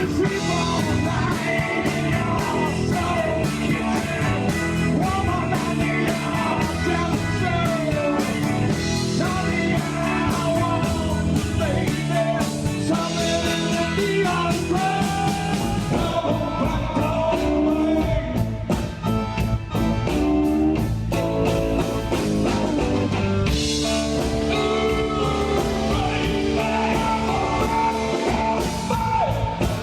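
Rock music: a band with drums, bass and guitar plays a steady beat, with a singing voice at times.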